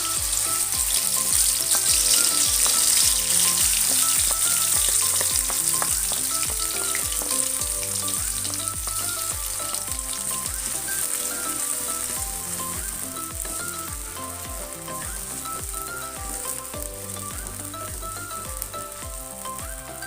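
Food frying in hot oil in a pan: a loud sizzle that sets in sharply, is strongest in the first few seconds, then slowly dies down. Background music with a steady beat plays under it.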